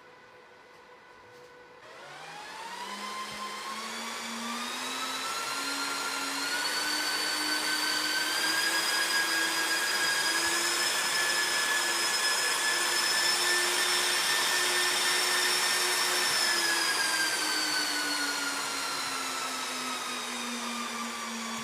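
Server cooling fans spinning up: a loud rush of air with a whine. About two seconds in the fans start, the whine climbs in steps to full speed and holds, then it drops partway back and settles near the end.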